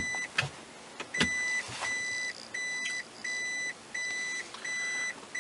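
2007 Toyota Prius (second generation) reverse warning beeper beeping steadily inside the car: short, high, even-pitched beeps repeating about every three-quarters of a second, the signal that the car is in reverse. A couple of short clicks come in the first second.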